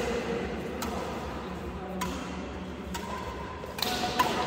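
A shuttlecock is struck by badminton rackets in a rally: sharp hits about once a second, the loudest near the end, over the background noise of a hall.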